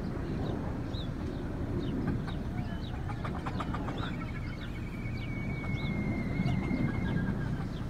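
Free-roaming chickens making short high chirps and clucks over a steady low rumble. A long, steady high whistle sounds through much of the second half.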